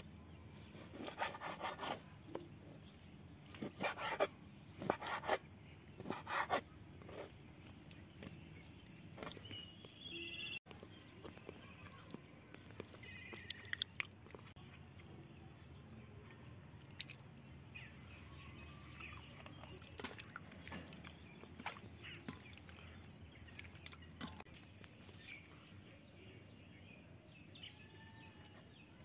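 Kitchen knife chopping through raw chicken on a wooden cutting board, several sharp strokes in the first few seconds. After that, quiet handling of a metal plate with light clicks, and a few faint bird chirps in the background.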